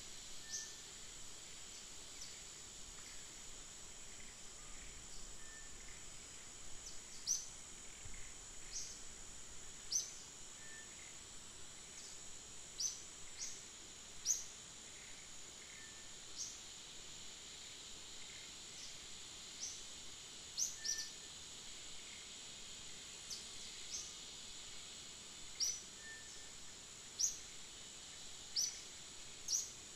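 Wildlife ambience: a steady, high-pitched insect drone, with short, high, rising chirps every one to three seconds that stand out as the loudest sounds.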